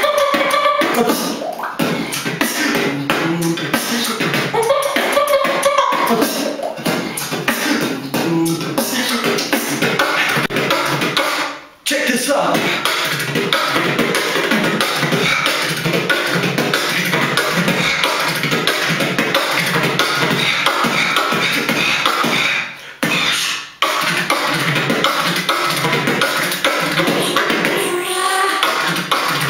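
Solo human beatboxing: a fast, dense freestyle of mouth-made drum sounds, with a few hummed tones near the start. It breaks off briefly twice, about a third of the way through and again past two-thirds.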